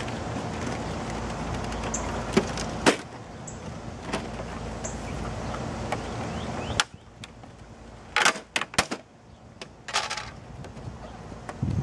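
Sharp plastic clicks, knocks and rattles as the casing and scanner lid of an HP printer-scanner are handled and pulled at, loudest in a quick cluster about eight seconds in and again near ten seconds. Under the first part there is a steady low rumble that drops away suddenly about seven seconds in.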